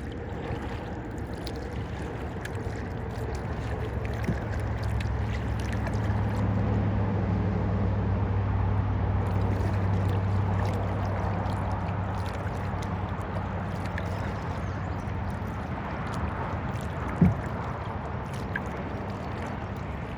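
Kayak paddling: water splashing and dripping around the paddle and hull. Under it, a low steady hum swells over several seconds and fades again. One sharp knock comes near the end.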